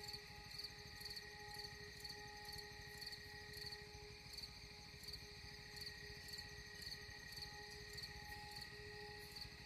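Soft background music with held drone-like tones, with a faint high chirping that repeats about twice a second.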